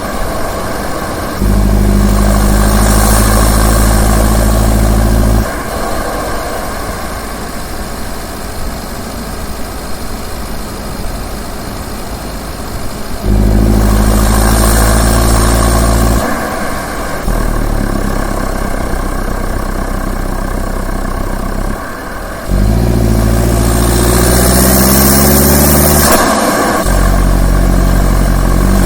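Turbo diesel engine revved four times, each rise held for a few seconds before it drops back to a quieter idle. The third rev climbs steadily in pitch.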